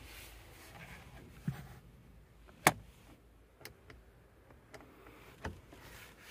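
A few sharp clicks from a car's interior switches and handling inside the cabin, one much louder click about halfway through and smaller ones before and after.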